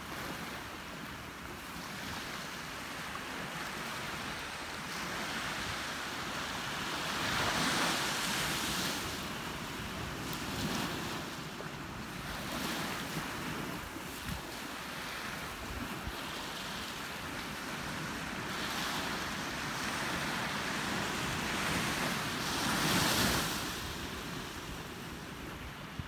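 Small waves washing onto a sandy beach, a steady wash that swells louder about a third of the way in and again near the end.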